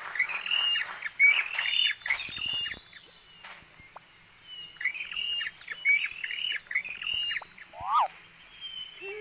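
Birds squawking in two quick runs of repeated harsh calls, with a single lower call near the end.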